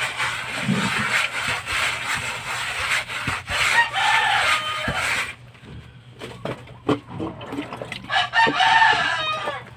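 A mason's trowel scraping and tapping mortar on a rough concrete wall, rasping for the first few seconds with knocks in between. A rooster crows in the background, briefly about four seconds in and again, longer, near the end.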